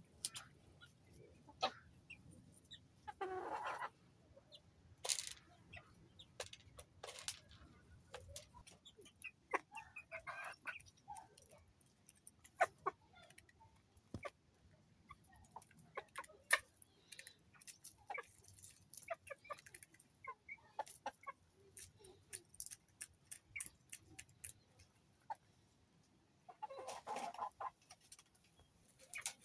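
Polish chickens clucking, with louder calls about three seconds in, around ten seconds and near the end, over many sharp clicks of beaks pecking at grain.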